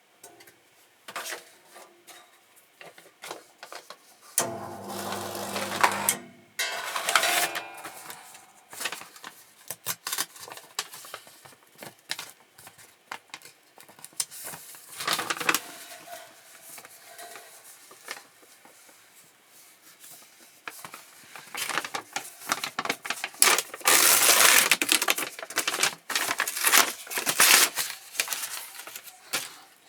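Electric paper creasing and perforating machine being handled and run: irregular clicks, clatter and paper rustling, with its small motor humming for about two seconds near the start and a long loud stretch of clatter about three-quarters of the way through.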